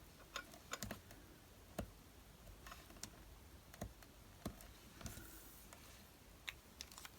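Faint, scattered light clicks and taps, irregularly spaced, of fine-liner pens and card being handled and set down on a craft table.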